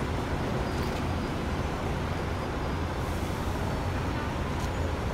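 Steady road traffic noise with a low engine rumble.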